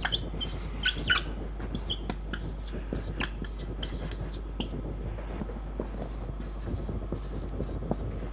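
Felt-tip marker squeaking and tapping on a whiteboard as words are written by hand: a quick run of short squeaks and light clicks, loudest about a second in.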